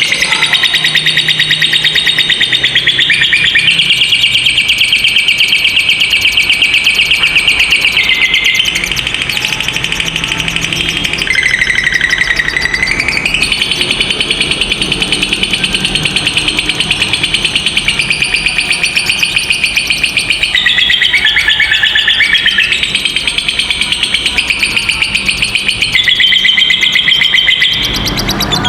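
Lovebird giving its long 'ngekek' call: one high, rapid, rattling trill that runs on without a break, stepping down in pitch a few times before rising again.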